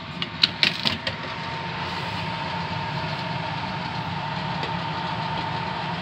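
Several sharp clicks as the return-air vent grille of a central air conditioner is swung shut and latched, followed by the steady rush and hum of the system drawing air through the vent, with a faint steady whine.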